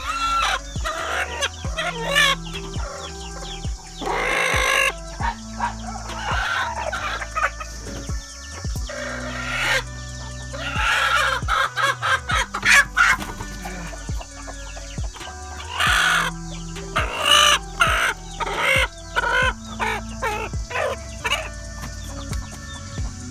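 Nattu kozhi (native country) hens clucking and squawking in irregular loud bursts, disturbed as they are lifted off their nest boxes. A rooster crows among them.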